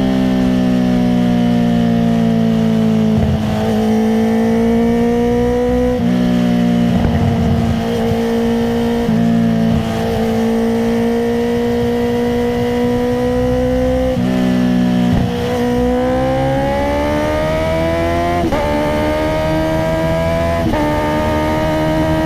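Honda CBR650R's inline-four engine through an Akrapovic titanium exhaust with no dB killer, heard on board while riding. The note sags slowly, is broken several times by rough, crackly patches as the throttle closes, then climbs steadily over the last several seconds with two sharp breaks.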